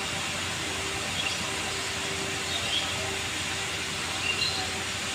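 Steady distant airfield and construction-site noise: distant jet engine and heavy machinery blended into an even hiss, with a faint steady hum and a few short, faint high chirps.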